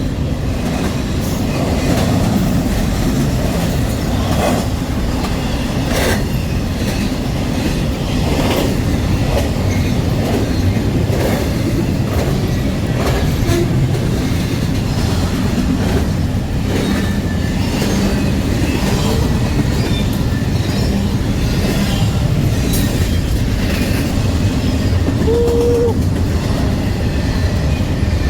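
Double-stack freight train rolling past: a steady, loud rumble of wagons with irregular clanks and clicks from the wheels, and a brief tone near the end.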